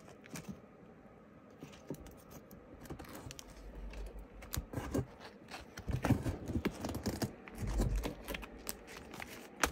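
Comic books being handled and moved about: irregular light clicks, taps and rustles, with a few dull thumps.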